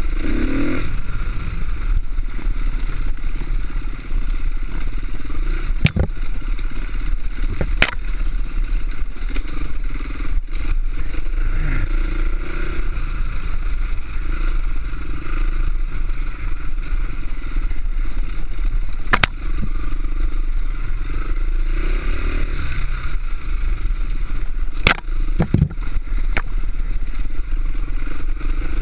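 Off-road motorcycle engine running steadily while riding a rough, stony dirt track, with clatter and scraping from the bike over the rocks. A few sharp knocks stand out, about four across the stretch.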